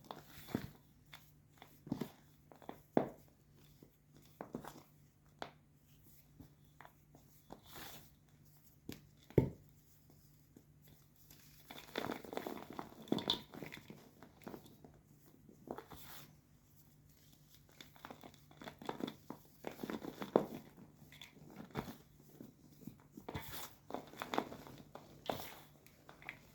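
Blocks of white gym chalk being crushed and crumbled: irregular dry crunches and crackles with short pauses, busier stretches in the middle and near the end, and one sharp crack about nine seconds in that is the loudest.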